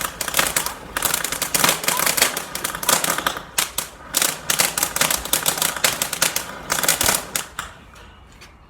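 A volcano fountain firework burning with a dense run of fast, uneven crackles, which die away near the end.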